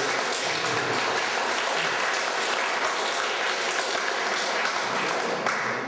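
Audience applauding: dense, steady clapping from a room full of people, dying away at the very end.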